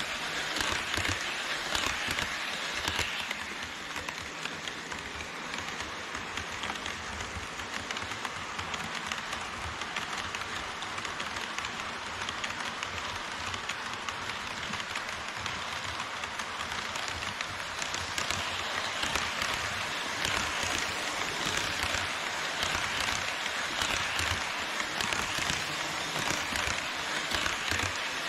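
HO-scale model trains rolling past on KATO Unitrack: a steady rattling hiss of metal wheels on the rails, with fast, dense clicking.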